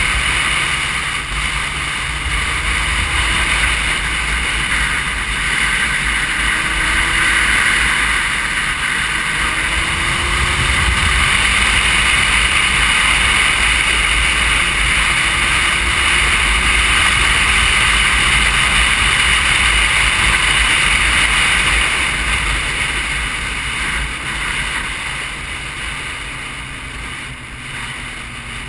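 Wind rushing over the microphone of a camera mounted on a moving motorcycle, with the motorcycle's engine running underneath, its pitch rising and falling gently. The rush dies down over the last few seconds.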